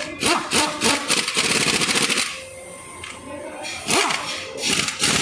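Pneumatic impact wrench working bolts during an engine mount replacement, run in short bursts: quick whirring spin-ups and fast rattling hammering with a hiss of air. The bursts come about a second in and again near the end.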